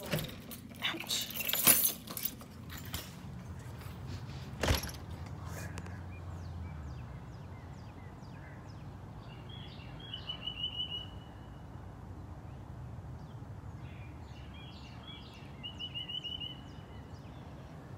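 Outdoor ambience of a steady low rumble with small birds chirping: a quick trilled phrase about ten seconds in and another near the end. Sharp knocks and clicks come in the first five seconds, the loudest a single knock at about five seconds.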